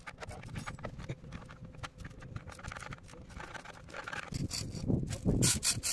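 Hand-tool work on the metal parts of a crane transmission: irregular clicks and taps, becoming louder from about four seconds in, with a cluster of sharper knocks and scrapes near the end.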